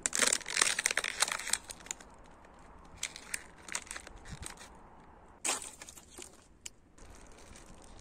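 Thin plastic water bottle crinkling and crackling as it is squeezed in the hand, in a dense burst for the first second and a half, then shorter bursts about 3 seconds in and again about 5 and a half seconds in.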